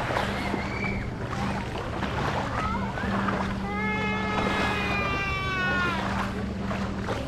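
Scattered voices of people over a steady low motor hum, with one long, high, held call that falls slightly in pitch a little past the middle.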